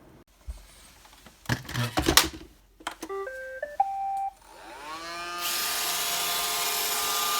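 Roomba 537 robot vacuum: a few knocks as it is handled, then its short start-up beep tune stepping up in pitch, then its vacuum and brush motors spinning up with a rising whine and settling into steady running.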